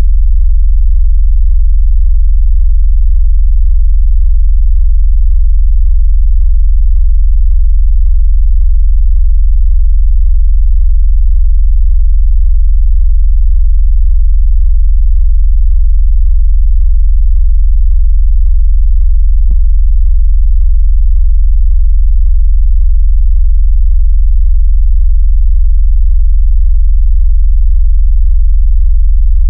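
Very loud, steady, deep synthetic bass tone, a low sine wave with a rapid even pulsing. It is a generated vibration sound, played to make a phone shake or to push water out of its speaker.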